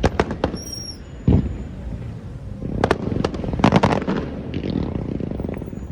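Aerial fireworks exploding: a few sharp bangs, a heavier boom about a second in, then a quick run of cracks and booms around three to four seconds in, with a low rumble between bursts.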